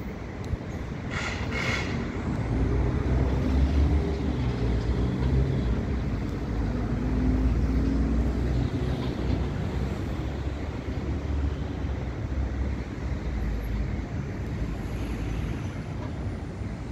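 Road traffic: a motor vehicle's low engine rumble builds over the first couple of seconds, holds, then eases off toward the end, with a short hiss about a second and a half in.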